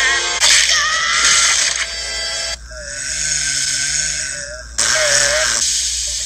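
Distorted, edited SpongeBob SquarePants cartoon audio from a YouTube Poop. A noisy jumble comes first. From about two and a half seconds in there is a held, voice-like tone whose pitch warbles up and down, then a shorter one just after.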